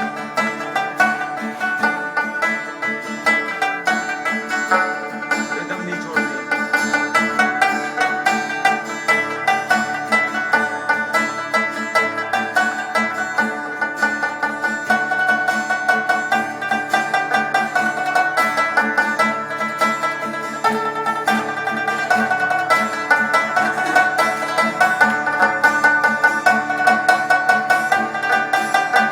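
Rabab, the Afghan short-necked plucked lute, playing a continuous fast run of plucked notes over sustained lower tones.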